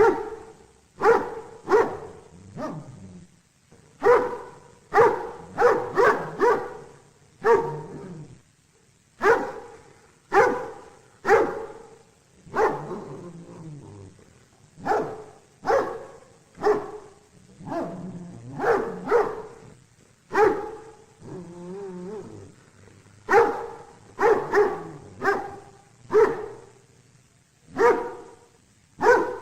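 A dog barking over and over, in quick runs of two to four barks with short pauses between runs.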